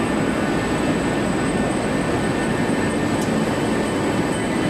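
TPR shoe welt co-extrusion line running steadily on a test run: a constant low machine hum with a faint steady high whine.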